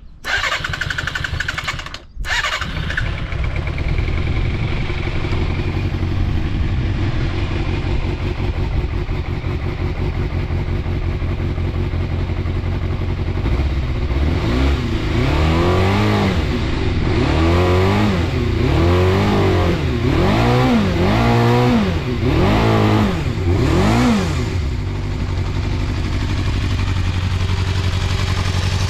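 Suzuki Bandit 250's inline-four engine starting up about two seconds in and settling into a steady idle, then revved with about seven quick throttle blips, each rising and falling cleanly, before idling again. It revs up freely with no abnormal noises, the mark of a healthy low-mileage engine.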